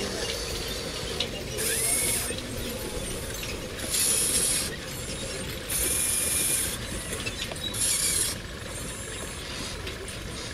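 Electric motors and gearboxes of a radio-controlled model excavator whirring in four short bursts as its boom, arm or bucket moves, over a steady low mechanical background.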